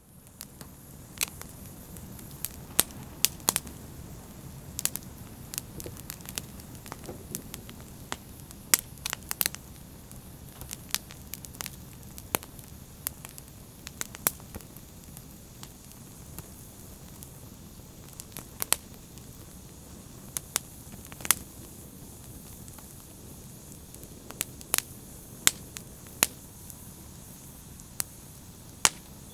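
Wood fire burning in a fireplace: a steady low rumble of flames with sharp, irregular crackles and pops scattered throughout.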